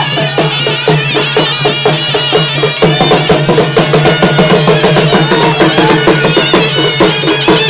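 Live folk drumming: hand drums beating a fast, even rhythm of about four strokes a second, with a piping melody playing over a steady drone.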